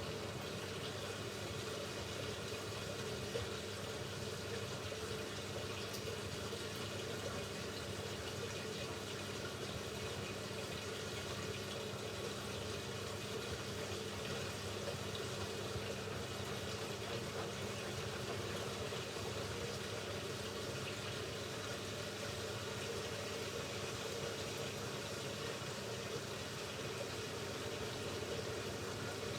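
Hoover Ecologic Computer Washer 1300 taking in water for a rinse: a steady rush of water pouring into the drum, with a faint steady hum underneath.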